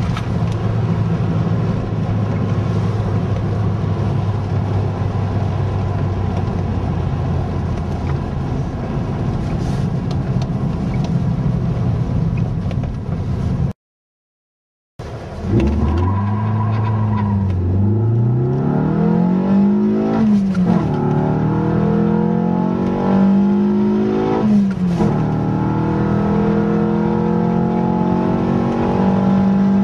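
Opel Vectra 2000's C20XE 2.0-litre 16-valve four-cylinder heard from inside the cabin, first running at a steady speed with road noise. After a brief dropout halfway through, it accelerates hard through the gears: the pitch climbs, falls suddenly at each of two upshifts, then holds steady at speed.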